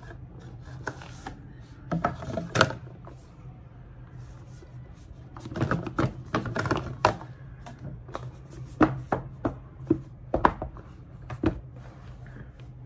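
Cardboard product box being opened and handled by hand: irregular clusters of sharp taps, knocks and clicks with soft rustling between them.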